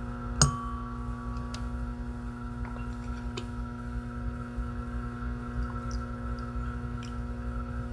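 A small object set into a metal bowl: one sharp clink about half a second in, leaving a clear ringing tone that fades over about a second, then a few faint taps. A steady electrical mains hum runs underneath.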